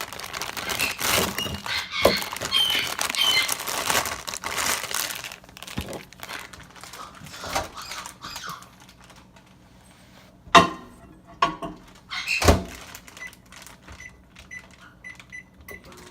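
Crinkling and rustling handling noise, then three sharp knocks and a run of short, faint, evenly spaced beeps.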